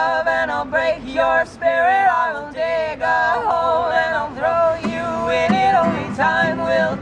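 A song with male voices singing together in harmony, sustained held notes that bend in pitch, with little instrumental backing.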